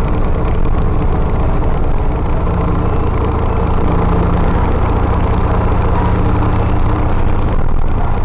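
Motorcycle engine running steadily at cruising speed, with wind and road noise.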